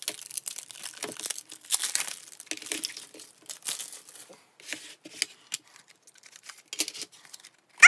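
Packaging rustling and crinkling as CD albums and their inserts are handled, with scattered light clicks and taps; the rustling thins out after about four seconds.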